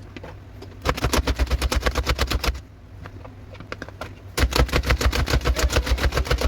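Two bursts of rapid knife chopping on a cutting board, about ten quick even strokes a second, with a pause of a couple of seconds between them.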